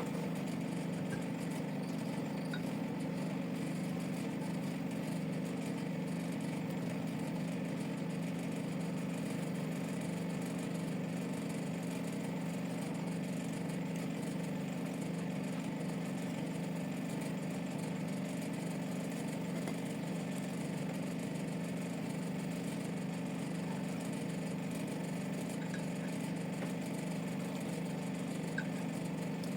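A steady low mechanical drone that does not change, with a few faint ticks.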